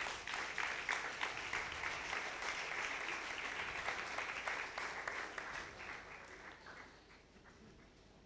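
Audience applauding, starting at once and dying away over the last couple of seconds.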